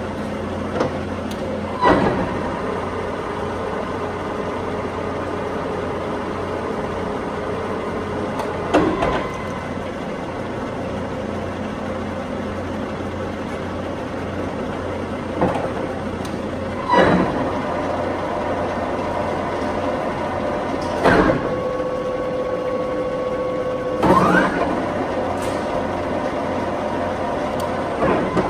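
Warner & Swasey 4A turret lathe running under power, its headstock motor and gears humming steadily. A clunk comes every few seconds, and after it the gear whine changes pitch, once rising as the spindle speeds up, as the spindle speeds are shifted from the control panel.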